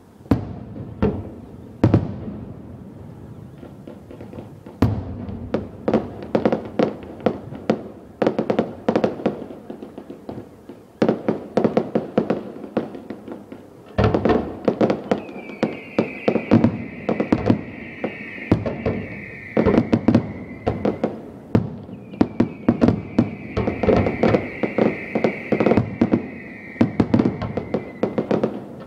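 Fireworks display: aerial shells bursting in rapid volleys of sharp bangs, sparse at first, then building to dense barrages with a thinner spell just before the middle. Twice in the second half a long high tone, falling slightly, runs over the bangs for several seconds.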